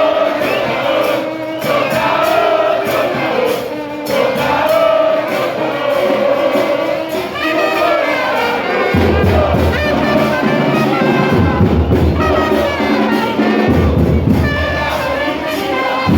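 Football crowd in the stands singing a chant together, with trumpets playing along; about halfway through, heavy bass drums start beating with it.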